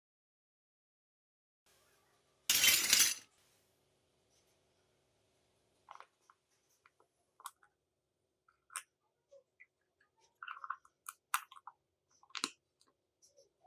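Small toy kitchen pieces clicking and clinking as they are handled, with scattered light taps. One louder, short rustling scrape comes about two and a half seconds in.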